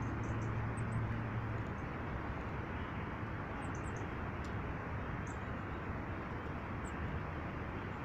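Short, thin, high-pitched calls of small birds, a handful of scattered notes, over a steady background rush. A low hum fades out about a second and a half in.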